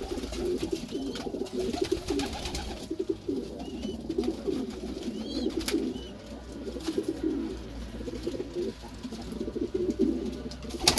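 Several domestic pigeons cooing at once in an overlapping, continuous chorus, with a few sharp clicks and some brief high chirps.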